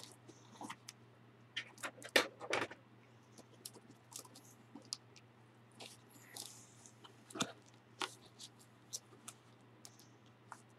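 Faint handling of an old Bible: scattered small clicks, crinkles and brief rustles as the thin pages and the cover are turned and touched, over a low steady hum.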